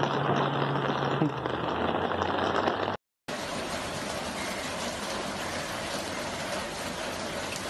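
Water noise with the steady low hum of a vehicle engine. About three seconds in the sound cuts out for a moment, then resumes as the steady hiss of heavy rain falling on standing floodwater.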